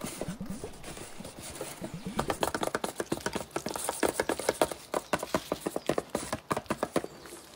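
Rapid runs of light taps from pointed paper fingertip cones drumming on a handmade paper-and-cardboard box, several taps a second.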